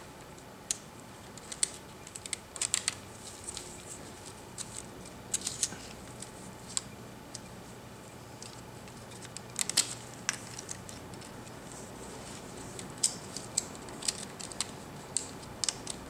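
Scattered light clicks and taps of a plastic part being handled and pressed back into place inside an opened tablet computer, with a few sharper clicks at irregular intervals.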